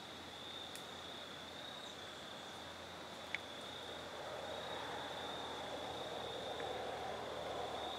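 Crickets trilling in one steady, unbroken high chorus. A single sharp click sounds about three seconds in, and a low background rumble swells a little about halfway through.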